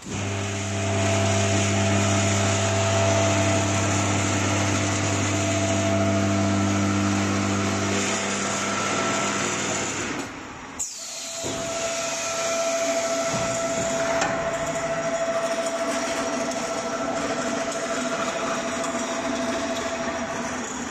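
Air-filter mesh welding machine running as its roller welding head travels along the wire-mesh seam: a steady low hum under a noisy mechanical whir, starting abruptly. The low hum stops about eight to ten seconds in, there is a brief drop, and then a steady higher whine and whir continue.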